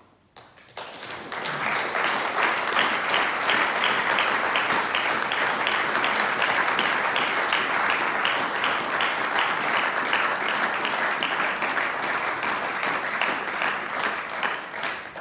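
A seated audience applauding: many people clapping together. The applause builds up about a second in, holds steady and thick, then dies away near the end.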